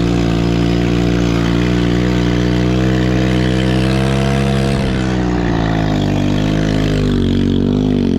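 Chinese 110cc ATV's small single-cylinder engine held at high revs with the throttle kept open through a spin. The pitch holds steady, eases down about five seconds in, then wavers up and down near the end.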